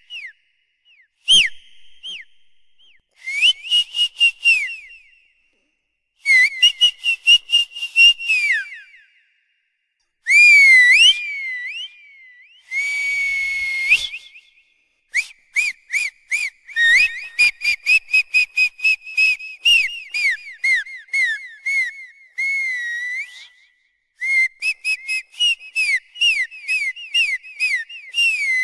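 High-pitched whistle sound effect of the kind played to make dogs tilt their heads: quick runs of short chirps, falling swoops and a few held notes, with short pauses between the phrases.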